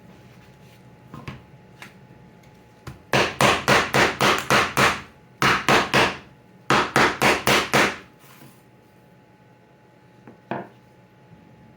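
Rapid tapping on wood in three runs of strokes, about four a second, with a single lighter knock near the end.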